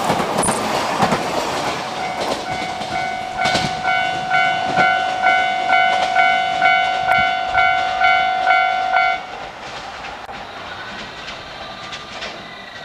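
An EV-E801 battery electric train rolls past over the rails with a clickety-clack, while the level-crossing alarm rings in a steady ding-ding pattern of about two tones a second. The alarm cuts off suddenly about nine seconds in, leaving a quieter background.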